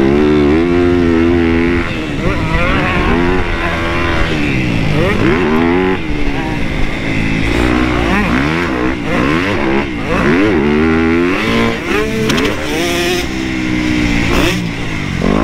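Dirt bike engine under hard riding, its pitch climbing and dropping over and over as the throttle opens and closes and the gears change.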